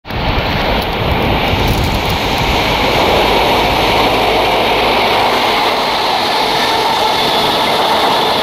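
Express passenger train approaching at speed along the through line and rushing past near the end: a loud, steady rush of wheels on rails that builds over the first few seconds.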